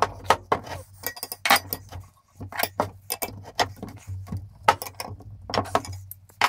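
Steel wrenches clinking and tapping against a nut, bolt and the steel frame of a lawn mower lift jack while a bolt is tightened: irregular sharp metallic clinks.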